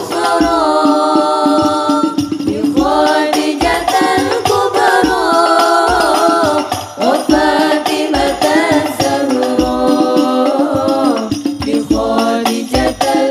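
Women singing an Islamic sholawat in unison into microphones, in long held notes that bend between pitches, over the steady beating of the frame drums (rebana) of an al-Banjari hadroh ensemble.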